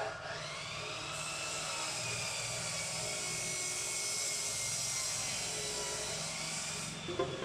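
Electric drill motor running at a steady speed after spinning up over the first second, stopping shortly before the end.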